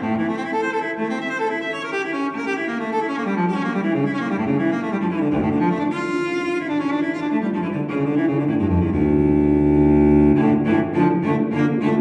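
Instrumental background music led by low bowed strings playing a moving line, with a long low note held about nine seconds in.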